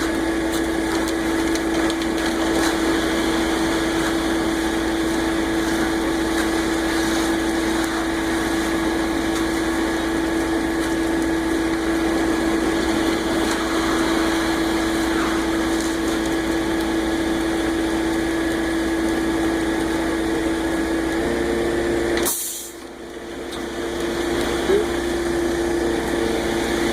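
Concrete mixer truck's engine running steadily during the pour. About three-quarters of the way in its tone shifts slightly, and a moment later the sound drops away briefly and comes back.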